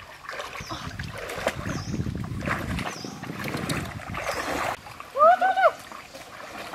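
Water splashing and swishing as a person wades through a shallow stream pushing a large metal basin along the surface. Faint high chirps recur about once a second, and two short, loud pitched calls come near the end.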